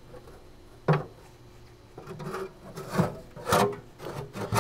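Scraping and rubbing of the pellet grill's metal heat shield plate being worked loose and lifted out, with one sharp knock about a second in.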